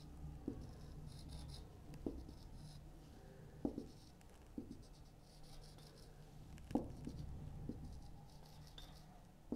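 Marker pen squeaking and scratching faintly on a whiteboard as short line strokes are drawn, with a few light knocks of the pen against the board.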